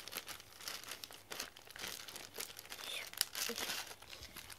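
Clear plastic packaging crinkling and rustling in the hands as a bag is opened and a party decoration set is pulled out, in a run of sharp, irregular crackles.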